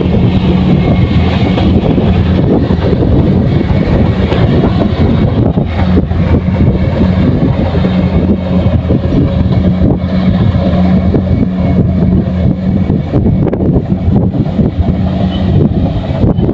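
Engine of a Kubota rice combine harvester running steadily: a loud, constant drone with a low hum.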